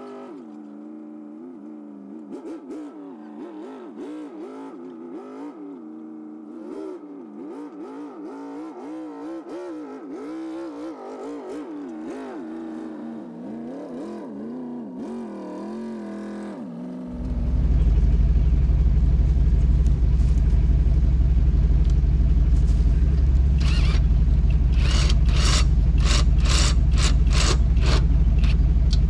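Pickup truck engine running at shifting revs while towing a camper trailer. About two-thirds of the way in, a much louder steady low rumble starts suddenly. A run of sharp clicks sounds near the end.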